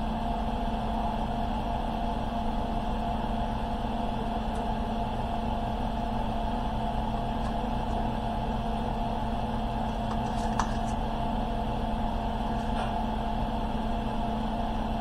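Steady low hum of a small room, with a few faint light clicks about two-thirds of the way through.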